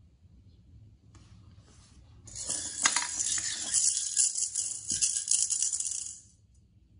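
A small maraca being shaken by a toddler: a quiet rattle about a second in, then loud continuous rattling from about two seconds in that stops suddenly near the end.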